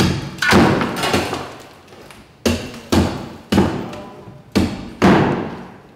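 A meat cleaver chopping a block of ice on a wooden floor, breaking it into pieces: seven sharp strikes at an uneven pace, several in quick pairs about half a second apart.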